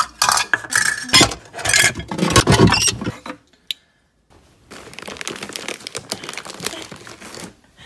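Plastic food containers and measuring cups clattering and clinking as a cabinet is rummaged through for about three seconds. After a short pause come a few seconds of steady plastic crinkling from the wrap of a case of bottled water being handled.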